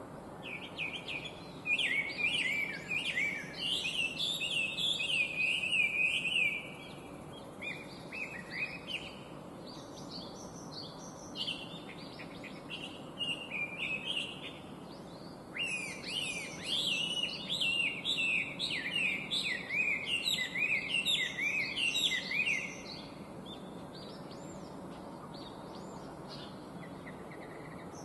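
Chinese hwamei singing: long, rapid runs of varied, loud whistled phrases, one starting about two seconds in and another starting about halfway through, with scattered quieter notes between and after them. A steady low background noise lies underneath.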